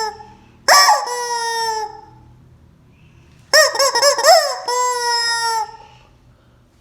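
Rubber screaming chicken squeeze toy squawking twice: a shriek of about a second, then a longer one from about halfway that wavers up and down in pitch before holding steady.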